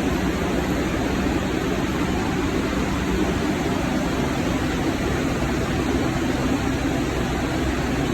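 New York City subway shuttle train running: a steady rumble and rush of noise with no distinct events.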